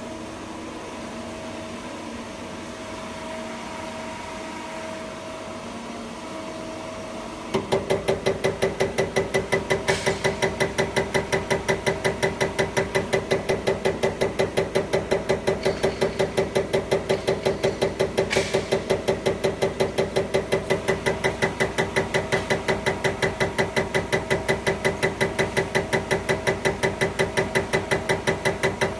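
Injector test bench running with a steady mechanical hum; about seven and a half seconds in, a CAT 387-9433 HEUI injector starts firing on the bench, a loud, even, rapid clicking of several strokes a second over the hum.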